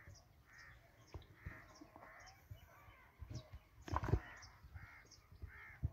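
Crows cawing over and over, a short harsh call roughly every second or less, with a few soft knocks mixed in; the loudest moment comes about four seconds in.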